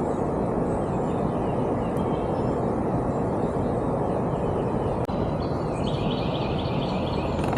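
Steady outdoor rushing noise that cuts out for an instant about five seconds in. Near the end a small bird gives a quick run of chirps.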